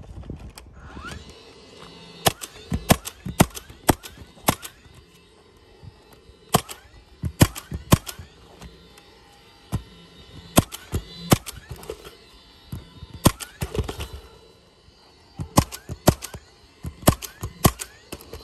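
Cordless coil roofing nailer driving nails through asphalt shingles. It fires as sharp shots in quick groups of three to five, each group a few seconds apart.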